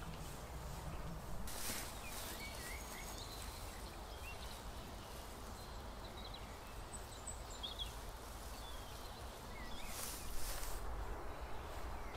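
Outdoor garden ambience: small birds chirping faintly now and then over a steady low rumble of wind on the microphone, with brief rustles of grass and plants being brushed about a second and a half in and again near the end.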